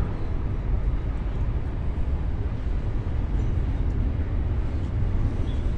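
Slow-moving intermodal freight train's container wagons rolling past with a steady low rumble.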